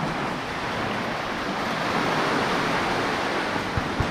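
Sea surf washing in at the shoreline, a steady rush of water, with two short knocks near the end from a blade chopping on the wooden table.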